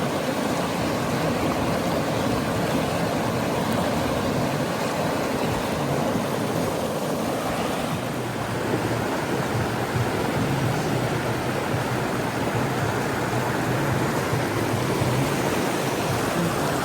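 Mountain river rushing over rocks: a steady, full water noise without a break.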